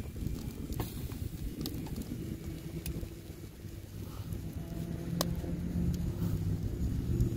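Wood fire crackling with a few sharp pops over a steady low outdoor rumble. A faint low hum grows stronger in the second half.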